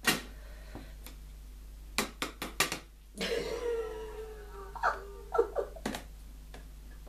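Sharp plastic clicks and taps from a tarantula enclosure's lid being handled: a quick run of four near the middle, with a drawn-out falling sound between that and a few more clicks.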